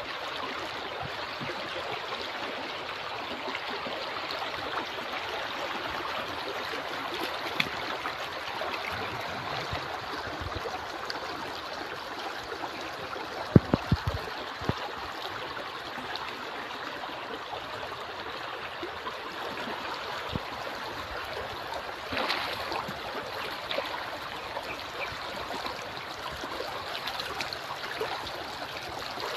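Running water of a river flowing steadily, an even rushing hiss. A few short sharp knocks stand out, the loudest a quick run of three about halfway through.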